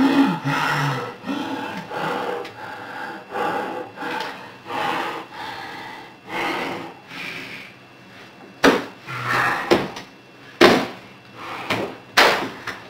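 A boy yelling and banging on a computer keyboard: a run of rough bursts, then several sharp knocks in the last few seconds.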